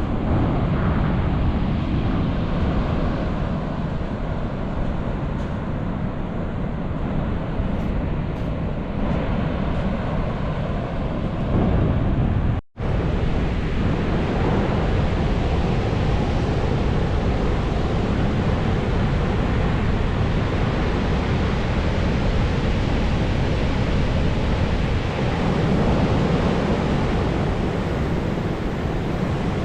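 Pacific Ocean surf washing steadily, with wind rumbling on the microphone. About 13 seconds in the sound drops out for a split second where the recording cuts, then carries on.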